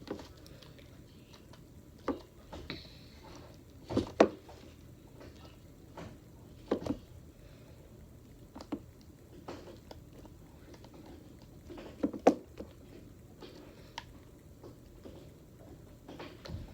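Slime being mixed and worked with added baby oil: scattered wet squelches and small sticky pops, about a dozen, with a quiet stretch between each.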